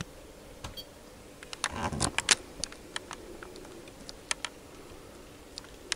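Light clicks of buttons being pressed on a Siglent SDG2042X function generator's keypad: a scattering of single clicks, bunched together about two seconds in.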